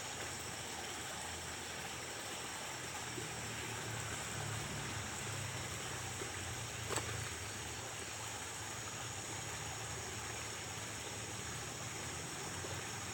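Steady ambient noise: a low hum under an even hiss, with steady high-pitched bands, and a single sharp click about seven seconds in.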